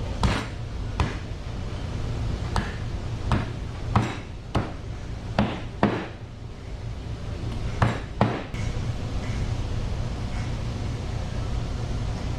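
Crocodile meat being chopped with a blade: about ten sharp, irregular strikes in the first two-thirds, two of them in quick succession after a short pause, over a steady low background hum.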